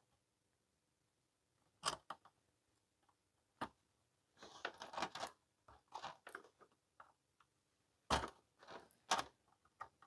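Faint, scattered clicks and small taps of hand tools, pliers and a soldering iron, working on a TV main board while the old antenna lead is desoldered and pulled from its hole. Four sharper clicks stand out, a little under 2 s in, around 3.5 s, and near 8 and 9 s, with a run of lighter ticks between them.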